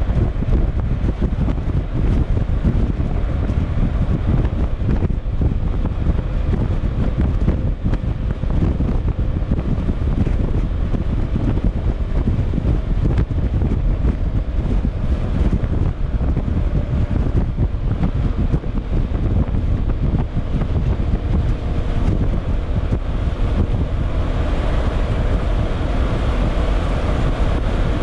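Yamaha XMAX scooter's single-cylinder engine and exhaust running while riding, heard onboard under heavy wind buffeting on the microphone. The engine note is stronger and harsher in the last few seconds.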